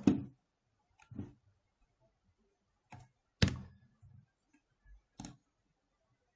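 Scattered clicks and taps of a computer keyboard and mouse, about seven short separate strokes with quiet gaps between them. The loudest, a sharper knock, comes about three and a half seconds in.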